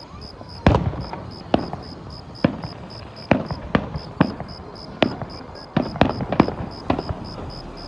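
Aerial fireworks shells bursting overhead: a run of sharp booms at irregular intervals, roughly one every half second to a second, some coming in quick pairs, each trailing off in a rumbling echo.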